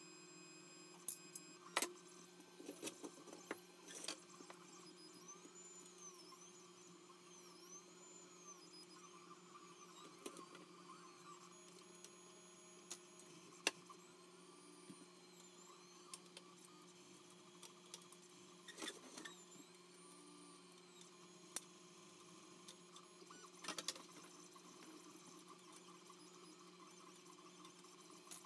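Faint sound of a 3D printer running: its stepper motors whine in repeated rising and falling arcs over a steady hum. Now and then come short sharp clicks and knocks as steel rods and printed plastic parts are handled.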